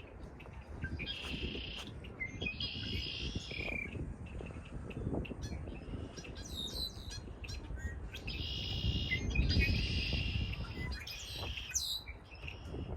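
Songbirds singing a handful of short, repeated warbling phrases, some overlapping, over a steady low rumble of wind that swells partway through.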